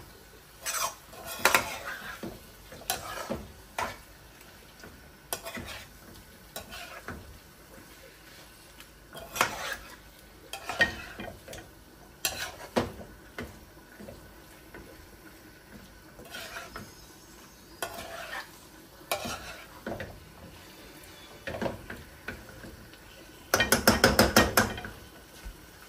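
Metal spoon stirring and scraping shrimp frying in a curry mixture in a pan, with scattered clinks against the pan over a light sizzle. Near the end comes a quick run of sharp knocks, the loudest sound here.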